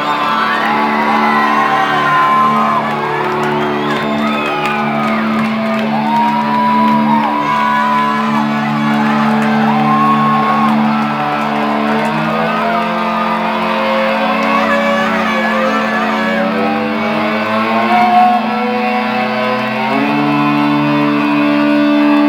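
Rock band playing live: sustained electric guitar chords held over a steady low note, changing chord about midway and again near the end, while the audience cheers and whoops.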